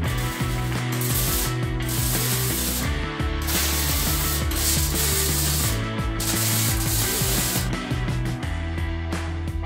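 MIG welder arcing in about five bursts of roughly a second each, tack-welding the steel front panels of a classic Mini bodyshell, over background music.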